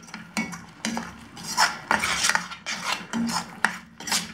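A utensil stirring thick masala gravy in a cooking pan, scraping against the pan in repeated irregular strokes, a couple each second.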